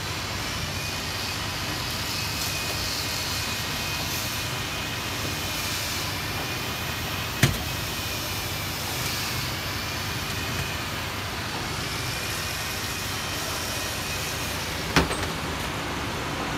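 Truck-mounted hydraulic knuckle-boom crane lowering a 2.2-tonne test weight under load: the truck's engine runs steadily to drive the hydraulics, with a faint wavering high whine. Two sharp knocks, about seven and a half seconds in and again near the end.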